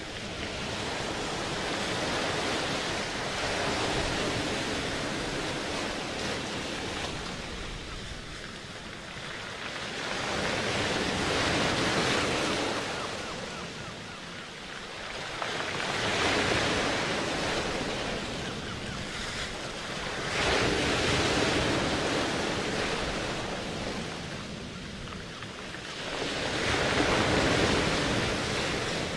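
Ocean surf: a rushing wash of waves that swells and fades about every five or six seconds.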